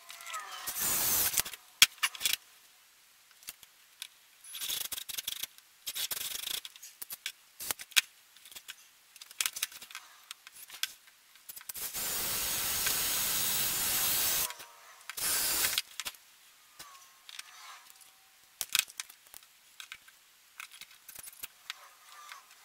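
Tool and hardware handling while working on the underside of a table top: scattered clicks, rattles and scraping, with a steady noisy stretch of about two and a half seconds about halfway through.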